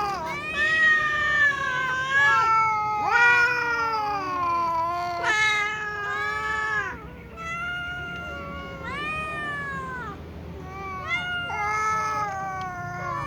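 Cats meowing over and over, about a dozen calls that rise and fall in pitch, some overlapping at different pitches.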